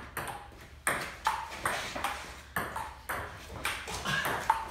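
Table tennis rally: a plastic ball clicking back and forth off the rubber paddles and the table top, roughly two to three sharp ticks a second with a brief hollow ring after each.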